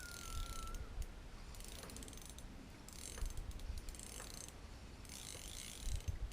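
Fishing reel clicking and ratcheting in short bursts as line is worked against a big fish, with pauses between the bursts.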